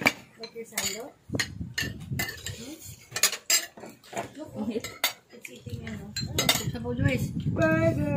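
Spoons and forks clinking and scraping against ceramic plates and a serving dish as food is served at a dinner table, in many short irregular clinks, with brief murmuring voices and a voice near the end.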